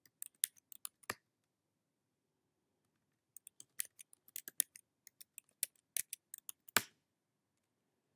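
Typing on a computer keyboard. A short burst of keystrokes comes first, then a pause of about two seconds. A longer run of keystrokes follows and ends in one harder keypress near the end.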